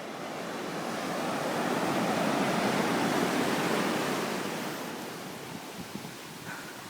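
Ocean surf: a steady wash of water that swells over a couple of seconds, then slowly fades.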